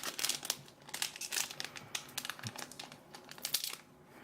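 Foil wrapper of a trading card booster pack crinkling in irregular bursts of crackles as it is handled and cut open.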